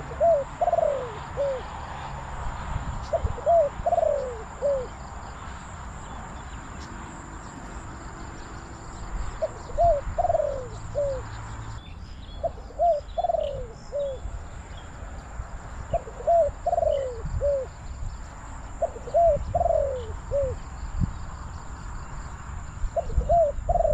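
Spotted dove cooing: a phrase of about four short, falling coos, repeated seven times a few seconds apart, with wind rumbling on the microphone.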